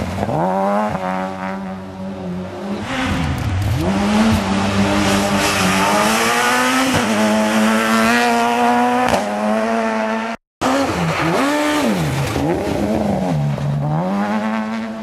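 Rally cars driven hard on a gravel stage: engine notes that drop sharply and climb again several times as the drivers lift off, brake and change gear, over a hiss of tyres on gravel. The sound breaks off briefly about ten seconds in, and another car is then heard revving and falling in the same way.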